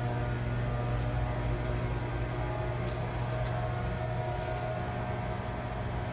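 Chevalier FSG-1632TXII surface grinder running under power: a steady electric-motor hum with a constant higher whine above it.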